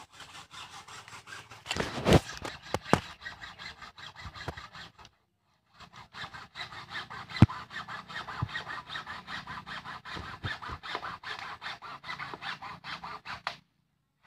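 Hand saw cutting through a bamboo pole in quick back-and-forth strokes, stopping briefly about five seconds in and then going on. A few sharp knocks of wood come in between, the loudest about seven seconds in.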